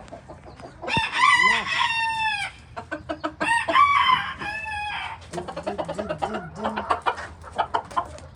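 A rooster crowing twice, each crow a long call of about a second and a half, followed by rapid clucking of chickens.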